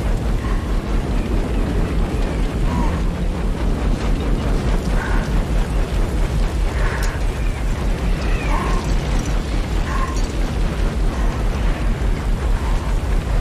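Blizzard wind with faint whistling gusts over a deep, even, pulsing rumble at about four beats a second.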